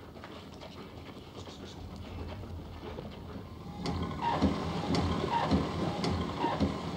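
Heavy rain falling, coming in suddenly and loud about four seconds in.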